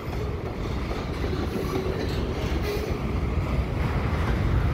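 Double-stack intermodal well cars rolling past on the rails: a steady low rumble of steel wheels, with faint scattered clicks.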